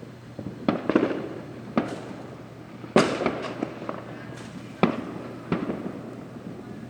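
Fireworks going off: about nine sharp bangs at irregular intervals, each trailing off in an echo, the loudest about three seconds in.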